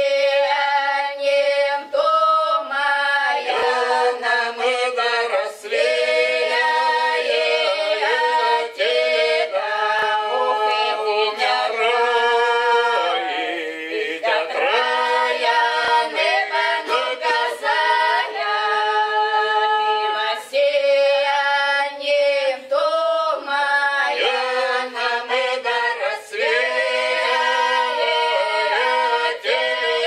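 Small Cossack folk ensemble singing a slow, drawn-out (protyazhnaya) historical song a cappella, several voices together holding long notes.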